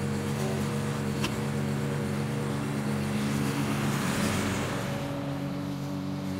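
Petrol walk-behind lawn mower engine running at a steady speed while cutting grass, growing louder and noisier about four seconds in as the mower passes close by. A short sharp click about a second in.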